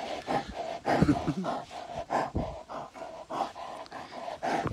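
Brown bear panting and snuffling close to the microphone, a quick, irregular run of short breaths and huffs.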